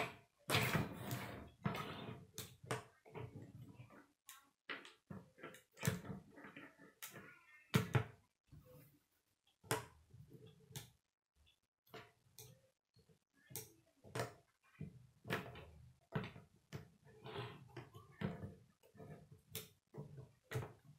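Plastic K'nex rods and connectors clicking and knocking as a K'nex toaster model is handled and shifted on a wooden tabletop: irregular sharp knocks, some in quick clusters.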